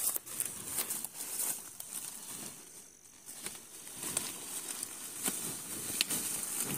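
Dry, dead corn leaves and stalks rustling and crackling, with scattered sharp snaps, as they are brushed and trodden through.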